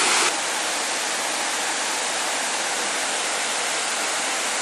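Steady rushing of Shifen Waterfall's falling water, heard from a distance. It drops a little in loudness shortly after the start, then holds even.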